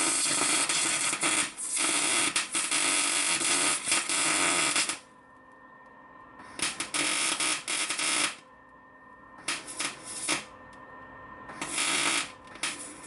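MIG welder arc crackling as weld is laid onto galvanized steel: one continuous run of about five seconds, then several shorter bursts of a second or less.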